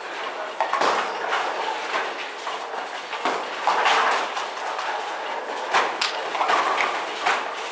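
Bowling alley noise: balls rolling down the lanes and pins clattering, with several sharp knocks through the din.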